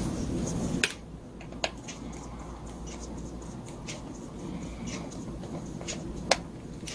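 Screwdriver working the screws of a small brush-cutter carburetor: light metal scraping and scattered clicks, with three sharper clicks about one, one and a half, and six seconds in.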